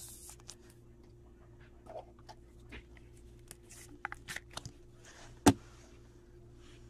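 Faint plastic rustling and small clicks as a sleeved trading card is slid into a clear rigid plastic top loader, then one sharp tap a little past halfway as the loaded card is set down on the table.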